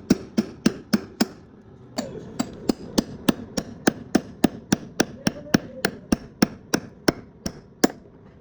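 Repeated hammer blows, about three a second, with a short pause about a second in, stopping shortly before the end.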